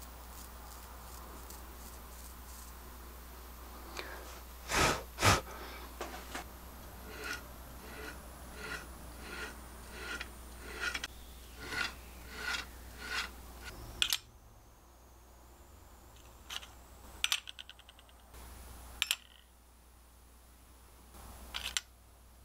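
A sharpened homemade steel broadhead scraping across a forearm and shaving the hair in short strokes: two louder strokes, then about ten quicker ones. Shaving hair this way shows the edge is razor sharp. After that come only a few light clicks and taps on a workbench.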